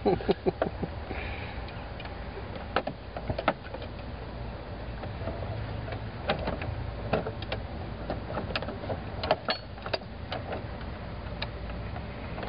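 Scattered light clicks and taps of hand tools and small metal parts being handled during work on a fuel filter housing, over a steady low hum.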